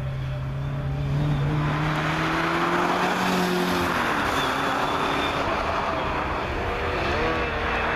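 Red Ferrari mid-engined V8 sports car accelerating hard past and away uphill, its engine note rising steadily, then dropping at a gear change about four seconds in before climbing again.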